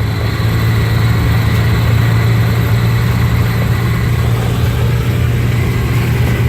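A car running, a steady low hum with an even rush of noise over it that holds unchanged.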